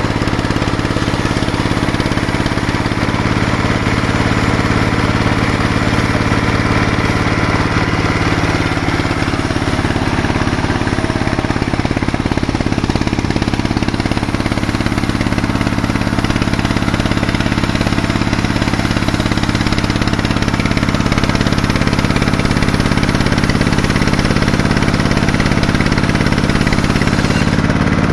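Sawmill machinery running steadily: an engine drone with a stack of low, even tones, holding a constant speed throughout.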